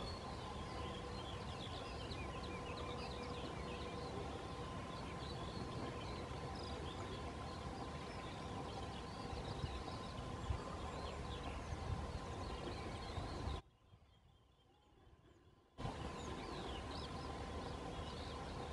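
Outdoor spring ambience of many small birds chirping and singing, over a low rumble. About three-quarters of the way through, the sound drops almost out for about two seconds, then returns.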